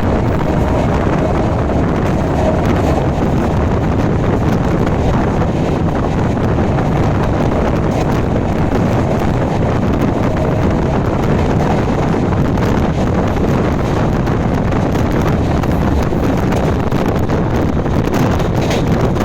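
Wind buffeting the microphone at a passenger coach's window as an express train runs at about 100 km/h, over the train's steady running rumble.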